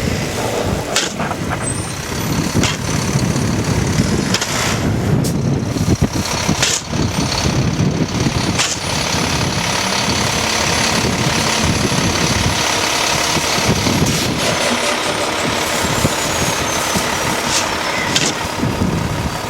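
A car stuck in snow with its tyres spinning, the engine running against a dense rumble of wind on the microphone. A thin high whine rises slowly from about a third of the way in and then falls away near the end.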